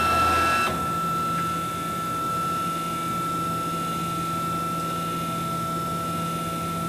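Drive motors of a Baileigh CNC plasma table moving the torch gantry along its tool path in a dry run, with the plasma arc not firing. It is a steady electric whine made of several constant tones, and the tones change once, under a second in.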